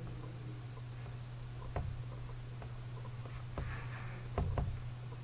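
Steady low electrical hum with a few sharp computer mouse clicks: one, then another, then two in quick succession near the end.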